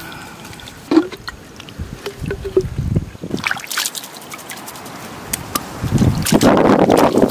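Water sloshing and trickling, with scattered knocks and clicks and a louder stretch of splashing noise near the end.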